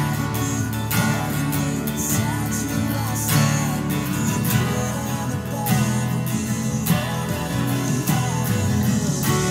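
Two acoustic guitars strummed together, playing chords steadily.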